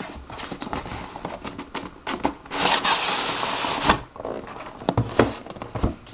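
Cardboard packaging being handled: a smaller inner box is slid out of a motherboard's outer cardboard box. About two and a half seconds in there is a scraping rub lasting about a second and a half, then a few light knocks near the end.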